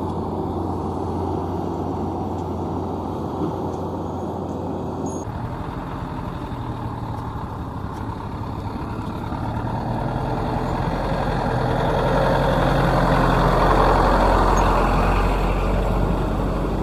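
Heavy diesel engines running steadily, with an abrupt change in the engine sound about five seconds in. A deeper rumble then grows louder toward about fourteen seconds and eases off slightly.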